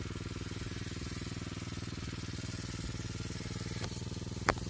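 Small General-brand four-stroke engine running steadily at a constant speed, driving the water pump of a shallot-field sprinkler. Two brief sharp clicks sound shortly before the end.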